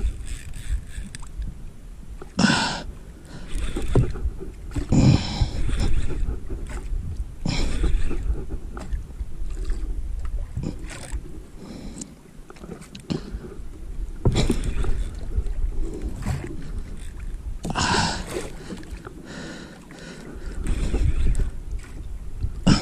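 Water slapping and sloshing against a small boat's hull in irregular bursts every few seconds, over a steady low rumble of wind on the microphone.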